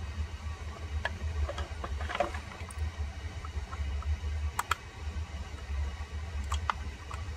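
Small scattered clicks and light scrapes of a screwdriver and the temperature probe's wires at the screw terminals of an STC-1000 temperature controller, as the probe leads are seated and the terminals tightened. A steady low hum runs underneath.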